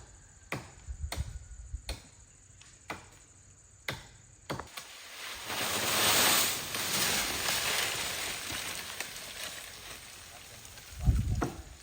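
Several sharp chopping knocks, then a long rustling rush of leafy tree branches that swells and fades, ending in a heavy thud near the end.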